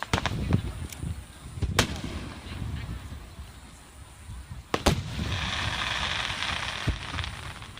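Aerial fireworks bursting: several sharp booms, the loudest about a second and a half in and about five seconds in. The second is followed by about two seconds of hiss.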